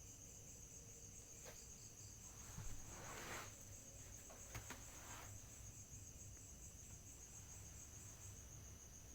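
Insects trilling in a steady, high-pitched, finely pulsing drone. Two brief soft rustles come about three and five seconds in.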